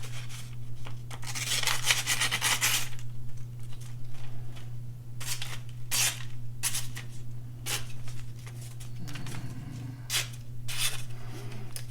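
Freshly sharpened knife edge slicing through thin phone book paper, a series of short dry hissing cuts, one longer drawn cut about a second in. A steady low hum runs underneath.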